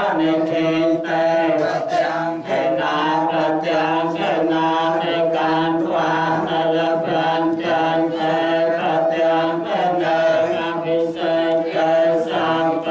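Khmer ceremonial chanting: a melodic voice chant, unbroken, over a steady held drone.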